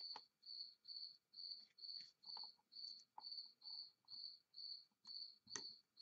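Faint, high-pitched chirping repeating evenly about twice a second, like a chirping insect, with a few light clicks of test leads and alligator clips being handled.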